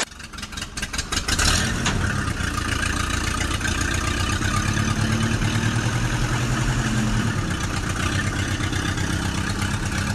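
Tractor engine sound building up over the first second or two, then running steadily with an even chugging pulse.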